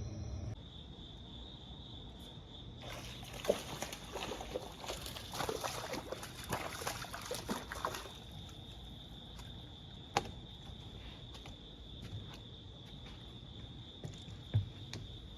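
Water splashing and trickling for several seconds, over a steady high-pitched insect trill, with a few sharp clicks near the end.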